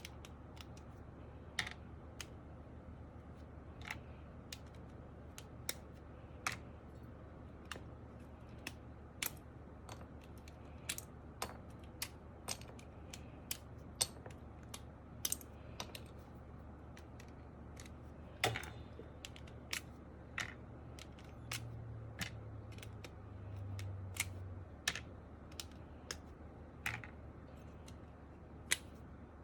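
Sharp, spaced-out clicks from an MK870 mechanical keyboard being handled and worked on, coming irregularly about once a second rather than in a typing run. A brief low rumble joins them about two-thirds of the way through.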